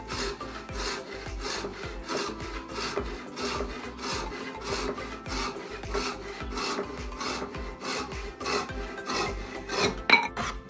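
Wooden frame saw cutting a long plank by hand, a steady back-and-forth rasp of about two strokes a second, with one sharper, louder stroke near the end.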